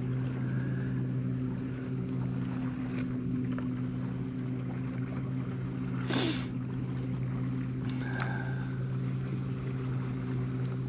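A boat motor hums steadily at an even pitch, with a short rushing noise about six seconds in.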